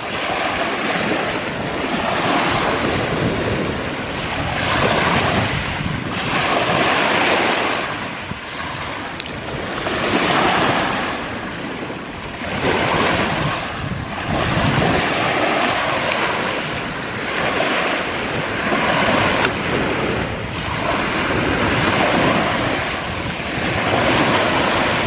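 Lake waves washing in on the shore in repeated surges every two to three seconds, with wind blowing on the microphone.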